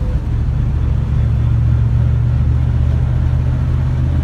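Old car's engine running with a steady low rumble, growing a little louder about a second in.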